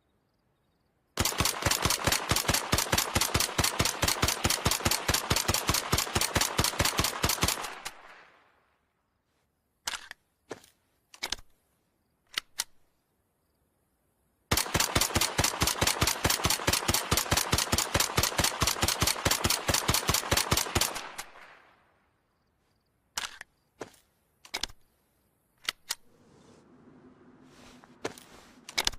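Ruger 10/22 rifle firing two long, rapid strings of shots at about seven a second, each fading off at its end. Between and after the strings come a handful of single shots.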